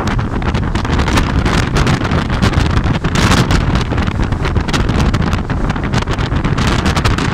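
Strong libeccio wind blowing hard across the microphone: a loud, continuous rush with rapid buffeting.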